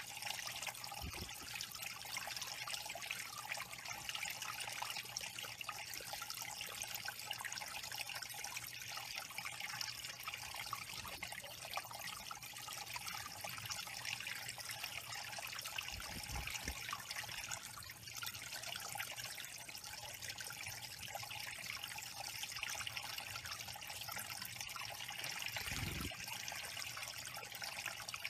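Small stone waterfall trickling steadily over stacked flat rocks into a shallow pebble pool. A few faint low thumps come through, about a second in, near the middle and near the end.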